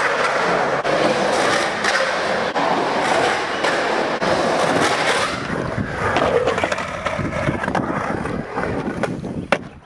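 Skateboard wheels rolling, with a few short clacks of the board. A sharp clack comes near the end as the rolling fades away.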